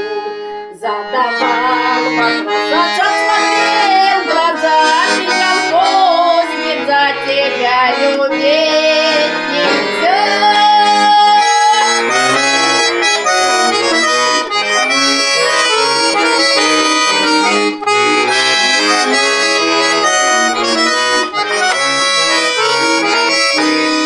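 Bayan (Russian button accordion) playing a lively folk tune in full chords. A woman's voice sings over it during roughly the first ten seconds, then the accordion carries on alone.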